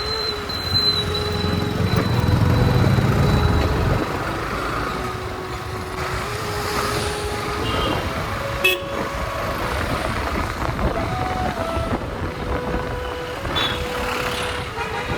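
Busy road traffic heard from a moving motorcycle: vehicle engines running, with a loud low rumble for a few seconds near the start and short vehicle horn toots later on. A single sharp click comes about halfway through.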